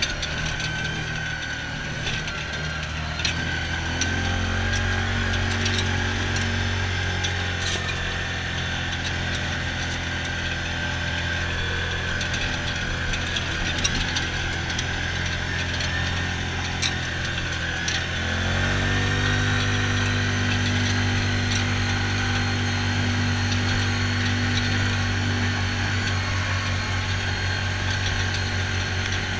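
Yamaha Rhino side-by-side UTV's engine running steadily under way, with scattered clicks and rattles from the vehicle and a steady high whine alongside. About two-thirds of the way through, the engine note drops briefly, then picks back up.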